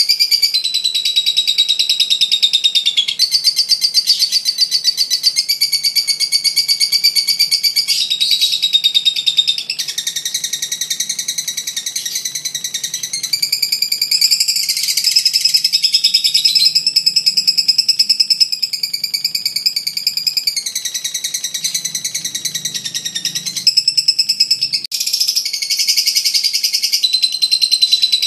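Blue masked lovebird singing 'ngekek', a long unbroken run of rapid, shrill chattering trills that shifts in pitch every few seconds without pausing.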